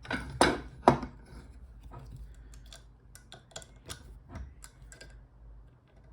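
Small metallic clacks and ticks from an Abloy Classic padlock and lock-picking tools being handled: two louder clacks in the first second, then light scattered clicks.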